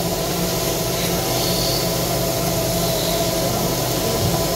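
Motor-driven wood lathes running steadily: a constant mechanical hum with a few steady tones over a hiss.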